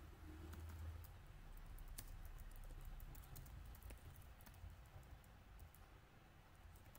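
Faint typing on a computer keyboard: a scatter of quick key clicks that thins out toward the end.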